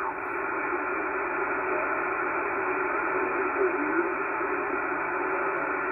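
Kenwood HF transceiver's speaker hissing with steady band noise, cut off above about 2.5 kHz by the receiver's sideband filter, as the VFO knob is tuned across the 75-metre phone band in lower sideband. Faint, garbled sideband voice comes through now and then.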